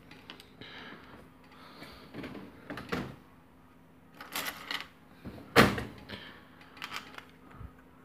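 Scattered small clicks and taps of a brass padlock cylinder, its key and a plug follower being handled during disassembly, with one louder knock a little past halfway.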